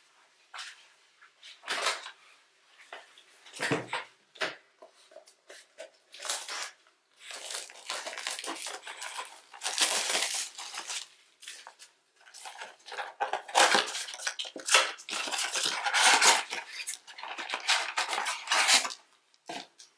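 Foil trading-card packs and plastic wrapping being torn open and crinkled, with cards handled: irregular crackling and rustling, sparse at first and busier from about a third of the way in.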